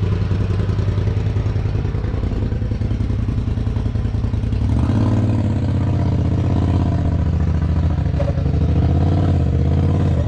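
Polaris RZR XP 4 Turbo side-by-side's turbocharged twin-cylinder engine pulling at low throttle as it crawls up a rock ledge. About halfway through it revs up louder and higher, the pitch rising and falling with the throttle as the machine works over the rocks.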